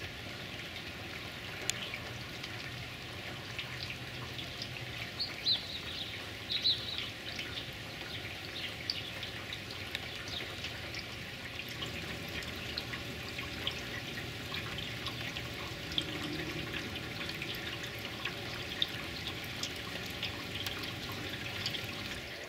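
Steady rain falling, with many small drip and splash taps through it. A couple of brief high chirps come about five and seven seconds in.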